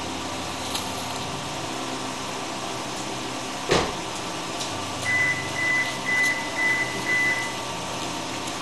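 A steady low machine hum, one sharp knock about halfway through, then a high beeping tone in several short pulses for a couple of seconds.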